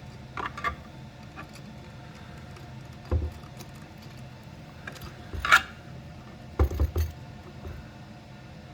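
Scattered small clicks and knocks from handling a power connector and its wires while they are tugged to check that the terminals grip. The sharpest click comes about five and a half seconds in, and a quick cluster of knocks follows a second later.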